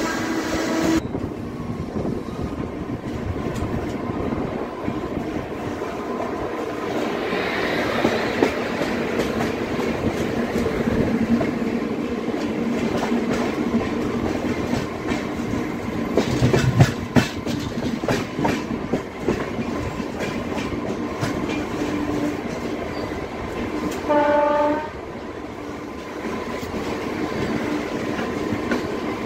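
Duronto Express LHB passenger coaches running at speed, heard from an open coach door: a steady rumble of wheels on the track, with a train horn that cuts off about a second in. About halfway through the wheels clatter over the track several times, and near the end comes one short horn blast.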